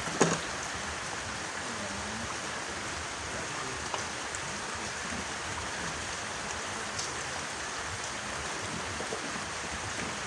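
Steady rain falling, an even hiss, with a single sharp knock just after the start.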